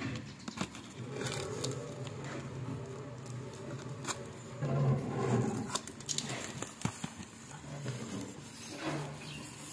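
A taped cardboard shipping box being opened by hand: rubbing and scraping on the cardboard and packing tape, with a few sharp clicks and rustles as the flaps are pulled apart.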